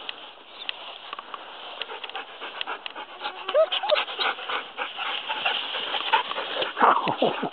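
Husky-cross dog panting as she runs up close through tall grass, with grass rustling and brushing against the microphone. Near the end a short, loud cry slides down in pitch.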